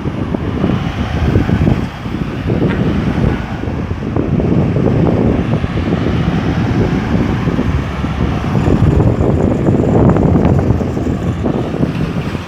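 Road traffic passing through a busy roundabout, a continuous rumble of vehicles, with wind buffeting the microphone.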